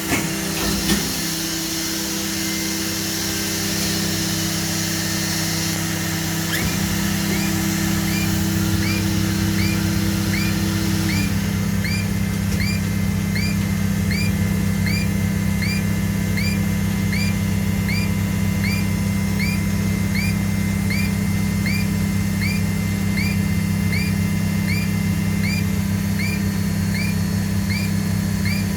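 Plastic injection molding machine running with a steady, loud hum. From about a quarter of the way in, a short rising chirp repeats evenly, about one and a half times a second.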